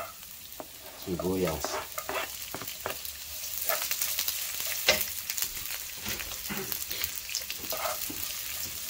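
Sliced red onion sizzling in hot oil with browned garlic and ginger in a nonstick wok, stirred with a wooden spatula that scrapes and knocks against the pan. The sizzle grows louder about a third of the way in, once the onion is in, with one sharper knock just past the middle.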